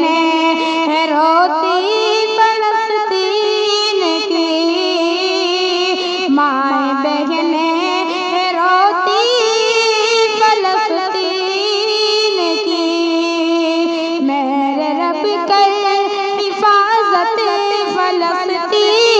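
A boy singing an Urdu nazm into a microphone, drawing out long held notes that slide and waver between pitches.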